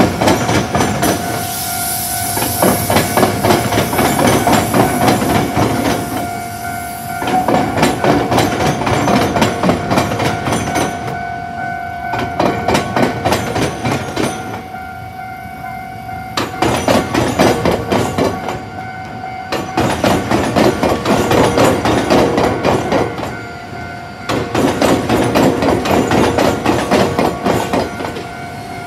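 Iyotetsu suburban train's wheels clattering over the joints of a diamond crossing with the tram tracks, in loud clusters as each bogie passes, with short lulls between cars. A level-crossing warning bell rings steadily through the first half.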